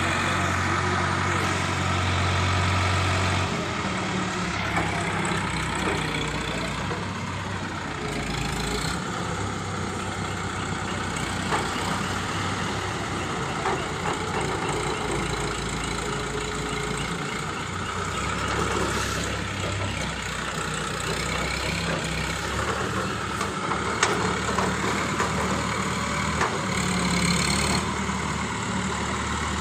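Diesel engine of a pick-and-carry mobile crane running steadily as the crane hauls on a wrecked truck, with a few sharp knocks now and then.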